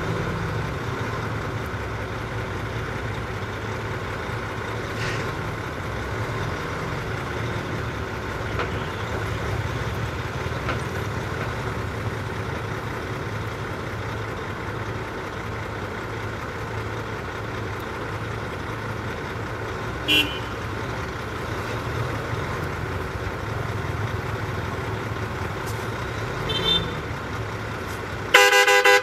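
Heavy diesel engine of earthmoving equipment running steadily. Two brief high toots come late on, then a loud horn blast just before the end.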